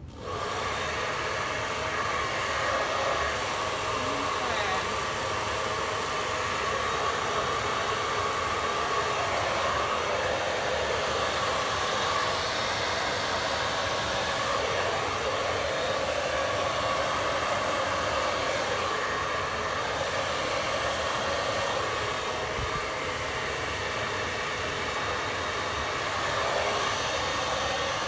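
Hair dryer running steadily at high power with a steady whine over the rush of air, switching on abruptly at the start, as used to blow wet acrylic paint across a canvas in a Dutch pour.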